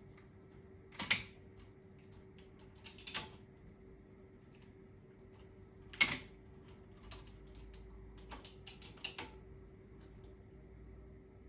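Ratchet-strap ratchets being cranked to compress a motorcycle shock spring, giving sharp metallic clicks. There is a loud click about a second in and another about six seconds in, with quicker runs of smaller clicks around three seconds and again near the end.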